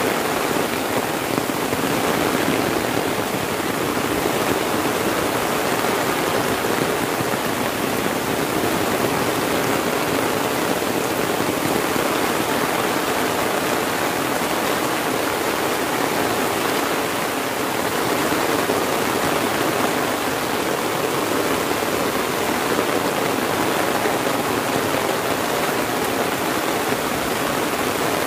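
Heavy rain falling steadily on an umbrella held overhead and on the surrounding leaves and grass, a dense, even hiss of drops with no letup.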